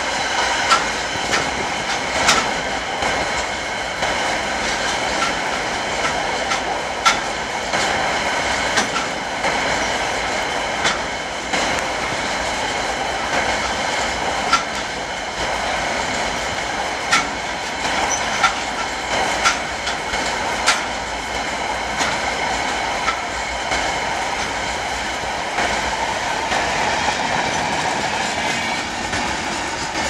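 Empty freight wagons rolling past: a steady rumble of wheels on rail, with irregular sharp clicks as wheels cross rail joints and a steady high metallic ringing from the wheels.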